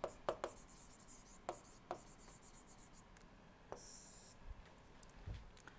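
Stylus writing on a tablet screen: a few faint, scattered ticks of the pen tip, with a brief scratching stroke about four seconds in.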